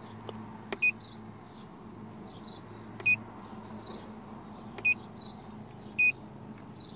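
Handheld automotive diagnostic tester giving four short electronic beeps, a second or two apart, as menu options are selected on its touchscreen while the engine fault codes are being erased. A steady low hum runs underneath.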